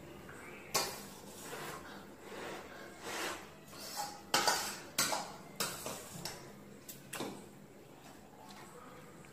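A metal fork clinking and scraping against a stainless steel bowl while noodles are twirled and eaten: a string of irregular sharp clinks, loudest around the middle, dying away near the end.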